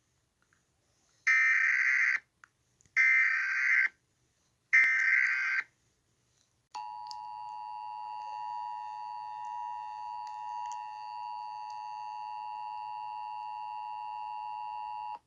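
Emergency Alert System SAME header: three harsh bursts of digital data tones, each about a second long with short gaps between them. After a brief pause comes the EAS two-tone attention signal, a steady dual tone of about 853 and 960 Hz that sounds for about eight seconds and then cuts off suddenly.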